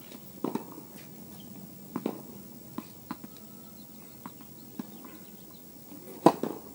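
Tennis balls being struck by rackets and bouncing on a court: scattered sharp knocks, with one loud, close racket hit near the end.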